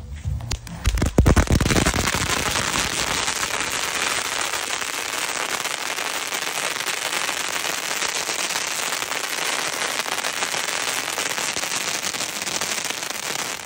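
Cone ground fountain firework erupting: a few sharp pops about a second in, then a steady, dense hiss of spraying sparks full of fine crackling.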